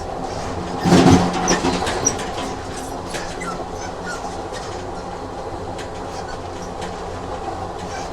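Train running on rails, a steady rumble with scattered clicks of the wheels over the track and a loud clank about a second in.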